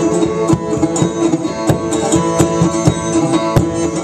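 Irish bouzouki and acoustic guitar strummed together with a steady beat in an instrumental passage between sung verses of a traditional folk song.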